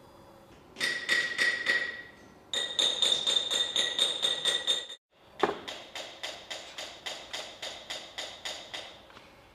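Rapid, even tapping of a pressing tool into the clay mold of a Nambu cast-iron kettle, about five taps a second in three runs, each tap with a brief ring: the dot pattern is being pressed into the surface before the mold dries. The second run cuts off abruptly.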